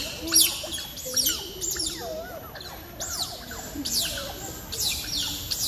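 Otters chirping: a run of short, high whistles that fall in pitch, about two a second, several overlapping as from more than one animal.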